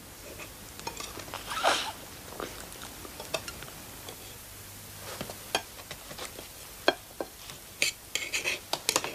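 Cutlery clinking and scraping on plates at a dinner table: scattered light clicks and taps, becoming busier in the second half.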